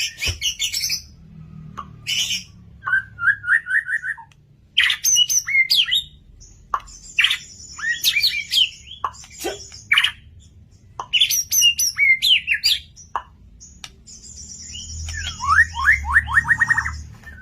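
Murai (white-rumped shama) singing continuously in varied phrases: fast high chattering trills, sharp sweeping whistles, and near the end a quick run of rising notes.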